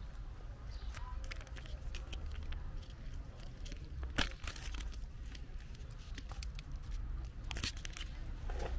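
Several kittens eating wet cat food from bowls: scattered small chewing and smacking clicks over a low steady rumble, with a sharper click about four seconds in.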